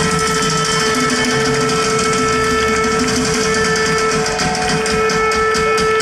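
Live band's amplified sound between songs: a single sustained note held steady through the stage speakers over a low crowd rumble. About five seconds in, a regular ticking beat starts, about three strokes a second.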